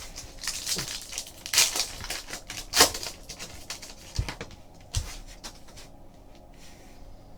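Trading cards being handled and flipped through: a run of papery rustling and sliding in the first few seconds, with a sharp click and a couple of soft knocks as cards are set down, then quieter handling.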